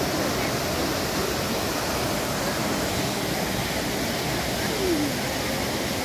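Small waterfall splashing steadily over rocks into a pond, a constant rushing hiss.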